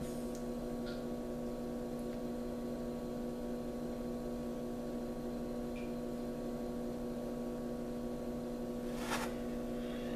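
Steady electrical mains hum, a low buzz made of several steady tones, with a brief soft rustle near the end.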